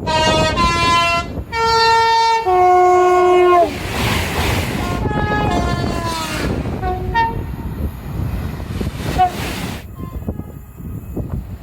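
A UK train's two-tone horn sounding loudly in high–low blasts for about four seconds. The train then rushes past, and the horn sounds again more faintly, its pitch falling as the train goes by, with rail clatter after.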